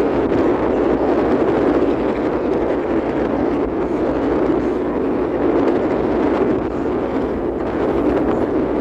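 Steady rushing noise aboard a moving boat, with wind buffeting the microphone.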